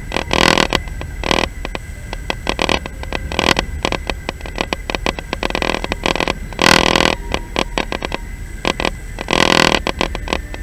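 Passenger train running, heard from inside the carriage: a steady low rumble under irregular rattling and clattering, with a couple of longer noisy surges about seven and ten seconds in.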